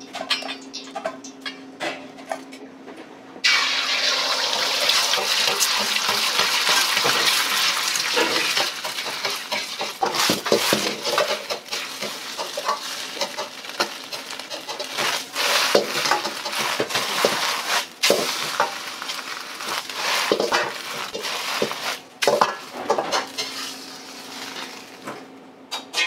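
A metal ladle clinks in a bowl of beaten egg, then about three seconds in the egg hits a hot oiled wok and sizzles loudly. The ladle clanks and scrapes against the carbon-steel wok as the egg is worked into a soft omelette, and the sizzle eases off near the end.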